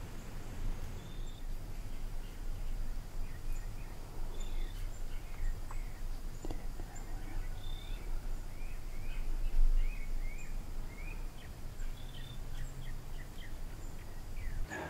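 Small birds chirping, a long run of short high notes repeating about once or twice a second, over a steady low rumble.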